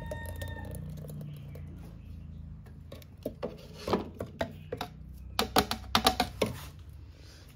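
Scattered knocks and clicks of kitchen utensils being handled, with a cluster of louder knocks about five and a half to six and a half seconds in.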